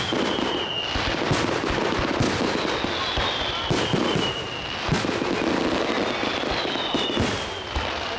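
Fireworks display: aerial shells bursting in quick, irregular bangs and crackles over a constant rumble. A high whistle falls in pitch over about a second, three times.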